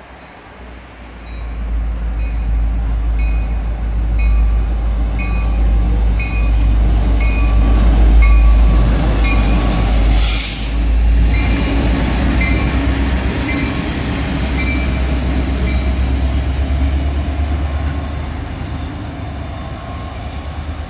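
A train passing close by: a heavy, steady rumble with a regular clicking rhythm, like wheels over rail joints, for most of its length. A short hissing burst cuts through about ten seconds in.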